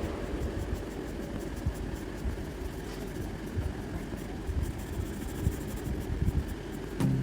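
Low, uneven rumbling noise with faint scattered ticks and no music; a strummed acoustic guitar comes in right at the end.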